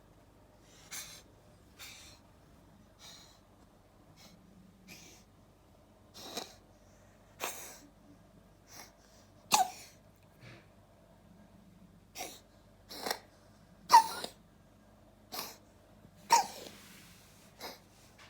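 Abyssinian cat coughing in a long bout of short, sharp coughs, roughly one a second, growing louder in the second half.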